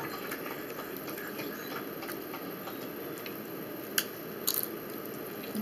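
Eating sounds: a bite into a strip of bacon about four seconds in, a sharp snap followed shortly by a brief crunch.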